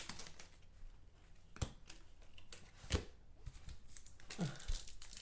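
Quiet handling of trading cards and a foil pack wrapper, with a few light, sharp taps, the clearest about one and a half and three seconds in.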